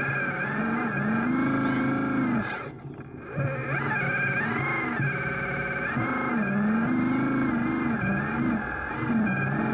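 An RC construction machine's engine sound revving up and down in pitch several times, with a brief drop-out about three seconds in.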